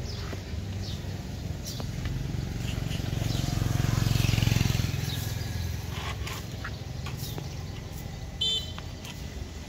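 Street traffic: a motor vehicle passes by, its low engine noise swelling and then fading about three to five seconds in. A short high-pitched sound comes near the end.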